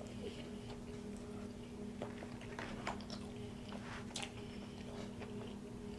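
Close-mic'd mouth sounds of chewing a bite of crispy chicken tender sandwich: scattered soft wet clicks and crackles, over a steady low hum.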